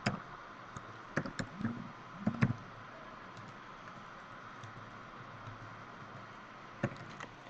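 Computer keyboard keystrokes: a quick run of key clicks in the first two and a half seconds, then a couple more near the end, over a steady faint hiss.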